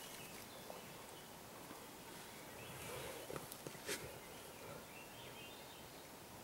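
Quiet woodland ambience: a faint steady hiss with a few faint high chirps and a couple of short sharp clicks or snaps. The loudest snap comes about four seconds in.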